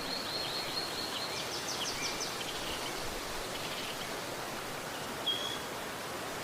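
River water flowing with a steady rushing hiss. Over it a small bird chirps: quick runs of high notes through the first half, then one short high whistle near the end.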